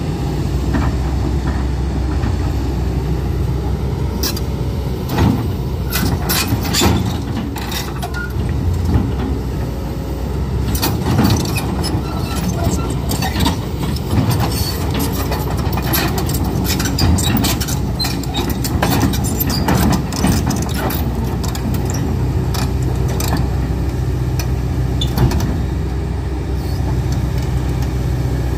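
Kobelco crawler excavator's diesel engine running steadily under load as the machine climbs the steel ramps onto a low-bed trailer, with repeated metallic clanks and knocks from its steel tracks.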